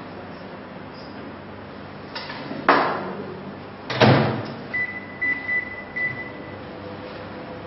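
Microwave oven door knocking twice, about a second and a half apart, then a few short high keypad beeps as the timer is set and started. A faint steady hum follows as the oven begins to run.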